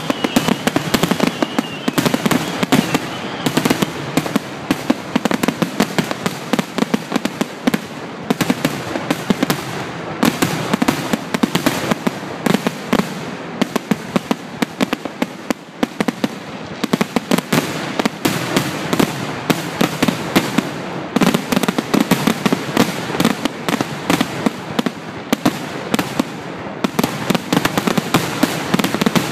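Fireworks grand finale: aerial shells bursting in a rapid, continuous barrage, the bangs overlapping several times a second.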